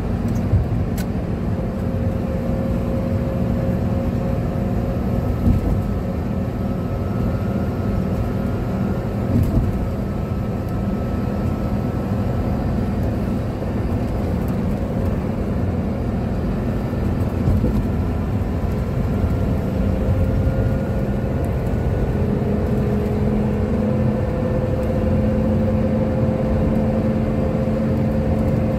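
Inside a Toyota Coaster minibus cruising at highway speed: steady engine and tyre drone, with faint whining tones that drift slightly in pitch and a couple of light bumps.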